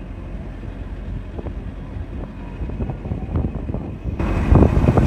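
Bus engine and road noise heard from inside the moving bus: a steady low rumble with scattered knocks and rattles. About four seconds in, a loud burst of rushing noise, like wind buffeting the microphone, takes over for a second or so and cuts off abruptly.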